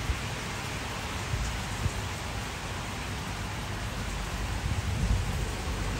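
Steady rushing noise of falling water, with a low rumble underneath.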